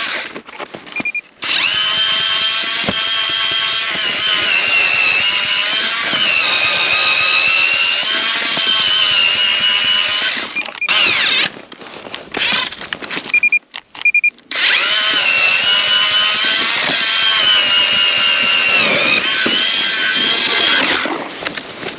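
Power ice auger boring through lake ice, a motor whine whose pitch sags and recovers as it bites. It stops briefly about a second in and again for a few seconds in the middle, starting back up each time.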